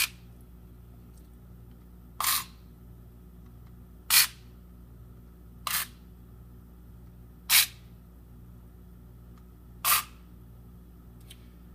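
Square D PowerLink AS motorized circuit breakers being switched one after another by their motor operators: six short, sharp mechanical clacks about two seconds apart, with a faint steady hum underneath.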